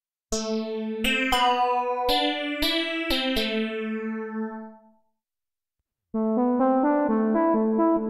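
Tone2 Gladiator 4 software synthesizer playing its 'LD CombPeex BN' lead-keys preset: about seven struck notes that ring out and fade away about five seconds in. After a second's gap, the 'LD CoolCat X8' lead preset comes in with a fast repeating run of notes.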